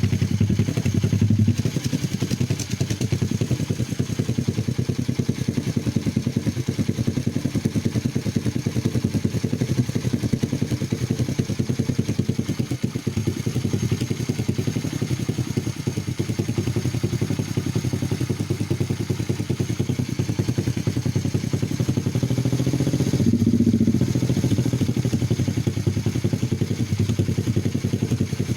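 Single-cylinder four-stroke engine of a 125cc pit bike idling steadily while it warms up, with fast even firing pulses; it gets a little louder about three-quarters of the way through.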